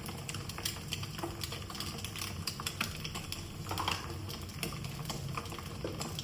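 Hot oil crackling and spitting in a frying pan on a gas stove: irregular light clicks over a steady low hum.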